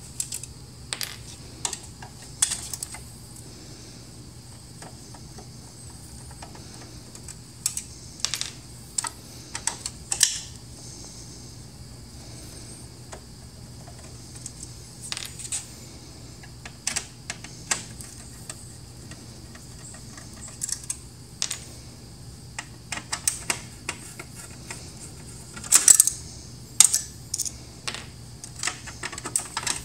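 Irregular clicks and light metallic clinks of a screwdriver working screws out of a laser printer's sheet-metal side frame, with a louder cluster about ten seconds in and another late on.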